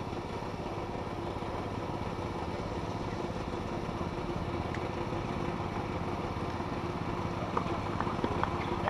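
A steady mechanical hum with a few constant tones, and several sharp taps near the end.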